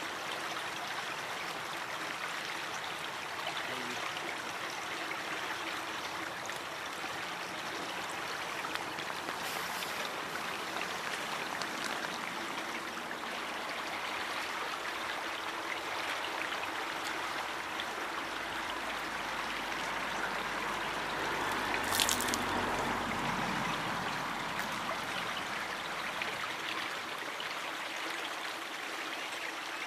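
Steady rushing of flowing river water, with a single sharp click about two-thirds of the way through and a faint low rumble that swells and fades in the second half.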